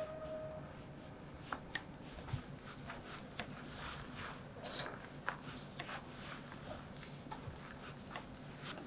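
Faint sounds of a knife slicing through boiled kazy horse-meat sausage on a wooden cutting board: soft cutting strokes with irregular sharp clicks as the blade meets the board.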